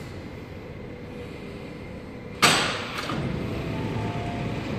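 Sydney Metro train doors and platform screen doors opening. About two and a half seconds in comes a sudden loud thump that dies away over half a second, then the doors slide open over a steady hum, with two faint steady tones starting near the end.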